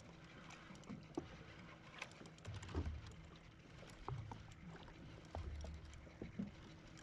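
Small waves lapping and slapping against the hull of a drifting jetski, with scattered light knocks and clicks and a few low thumps.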